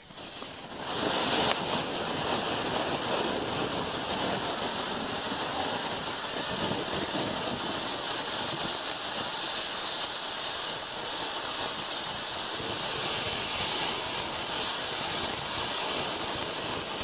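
Low-noise 'Fountain of Wealth' ground fountain firework catching after ignition and building within about a second to a steady, dense hiss of spraying sparks, which then holds evenly.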